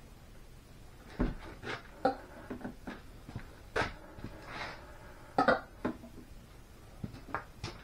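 Scattered metal clunks and knocks from a hydraulic excavator cylinder clamped in a vise as its chrome rod and gland are handled and worked. The loudest is a close pair of knocks about five and a half seconds in.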